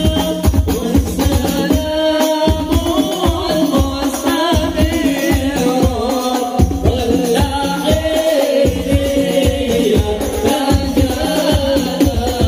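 A group of men singing a devotional chant together through microphones, with rebana frame drums beating a steady rhythm underneath.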